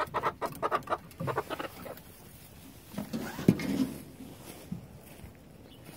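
Chickens clucking in a quick run of short calls, followed about halfway through by a low sound and one sharp knock.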